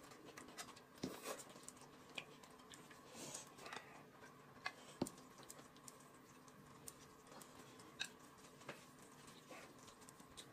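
Near silence with sparse, faint clicks and scrapes of chopsticks against plates and a tin of chili sauce as the sauce is served onto noodles and mixed in.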